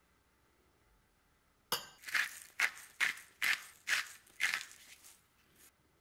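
Metal spoon clinking once against a glass bowl, then scraping round it in about eight quick strokes at roughly two a second while stirring granules into the sauce.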